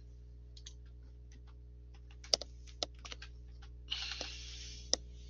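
Computer keyboard keystrokes: scattered separate key clicks, the sharpest about two and a half and five seconds in, with a short rush of noise around four seconds in. These are key presses at the router's console, bringing up fresh command prompts.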